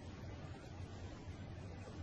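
Quiet room tone: a steady low hum with a faint even hiss.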